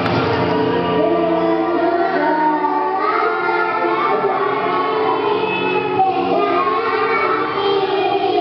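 A group of five-year-old children singing a song together.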